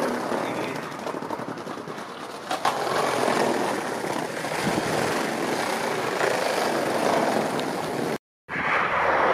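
Steady rushing noise of vehicles, with one sharp click about two and a half seconds in. Near the end the sound drops out for a moment at a cut, then comes back with a slightly different tone.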